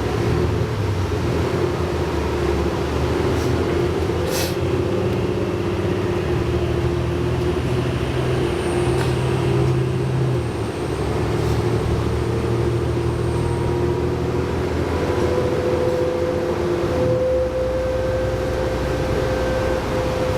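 Diesel bus running under way, heard from inside: the Cummins ISL9 engine and Allison B500R automatic transmission of a New Flyer D60LFR articulated bus give a steady drone with a humming tone. About fifteen seconds in, a higher tone climbs slightly and then holds. A single click sounds about four seconds in.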